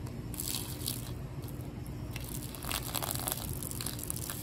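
Water poured from a plastic bottle, splashing onto the leather footbeds of a pair of sandals and the dry grass around them. The splashing comes in uneven spells over a steady low hum.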